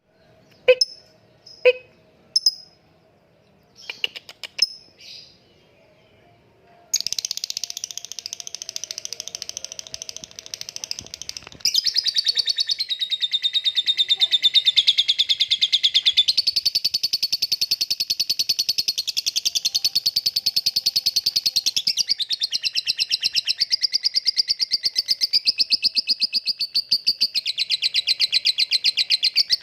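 Kept songbird singing: a few separate chirps at first, then from about seven seconds in a continuous, very rapid run of high notes that grows louder about twelve seconds in.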